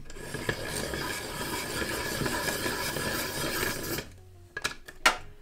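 Caran d'Ache hand-crank pencil sharpening machine being cranked, its cutter grinding the wood of a coloured pencil for about four seconds before it stops. Two sharp clicks follow near the end.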